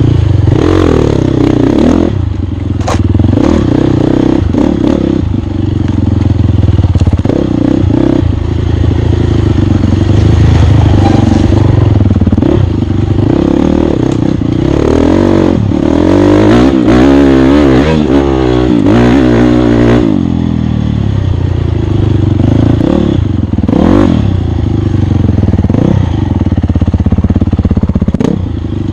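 Off-road motorcycle engine revving up and down again and again as it is ridden through a race course, with a few sharp knocks along the way.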